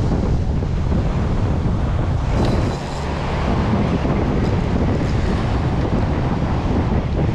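Wind buffeting the microphone over the wash of surf breaking on the beach, with a brief faint click about two and a half seconds in.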